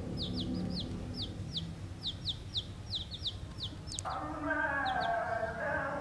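Young chicks peeping: a rapid run of short, high, falling peeps. About four seconds in, a louder, lower, drawn-out call with several stacked tones joins them.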